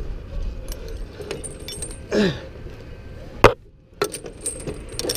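Steel chain links clinking and rattling as gloved hands work the rigging chains, with scattered light clicks and one sharp metal clank about three and a half seconds in.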